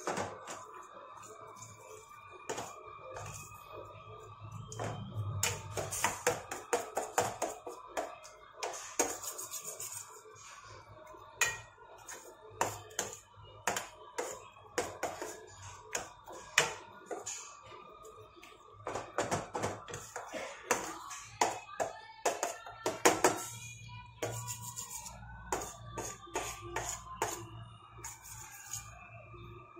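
Wooden spatula scraping and knocking against a stainless steel pan as a thick mashed-vegetable bhaji is stirred and mashed, in quick irregular clicks and taps, over faint background music.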